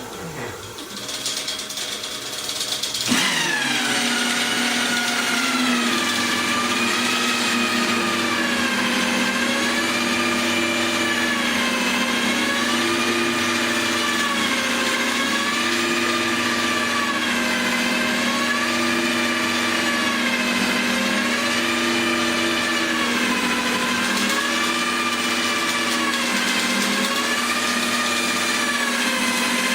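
Electric drill driving the 3D concrete printer's extruder, cutting in about three seconds in and then running steadily with a whine that rises and falls in pitch about every two seconds.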